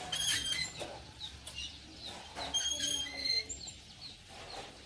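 Farmyard chickens clucking, with repeated short high chirps from small birds.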